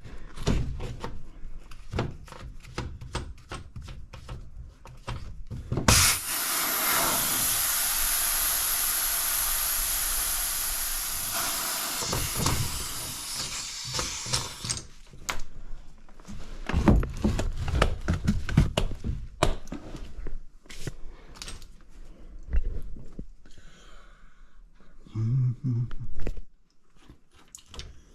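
Scattered knocks and clatter of hands-on installation work. About six seconds in, a loud steady hiss starts suddenly and runs for about nine seconds before stopping.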